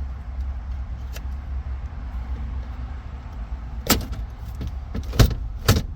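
Plastic car interior trim being yanked off its retaining clips: three sharp knocks or snaps, one about four seconds in and two more near the end about half a second apart, over a steady low rumble.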